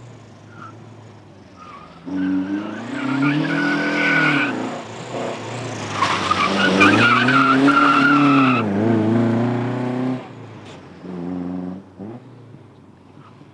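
Classic Alfa Romeo car driven hard, its engine revs swinging up and down, with tyres squealing in two stretches: briefly about three seconds in, then louder from about six to nine seconds in.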